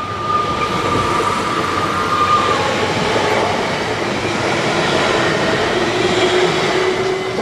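Electric multiple unit (a MittelrheinBahn Siemens Desiro ML, class 460) passing close by at speed: a loud, steady rush of wheels on rail and air that swells about a third of a second in as the train reaches the crossing.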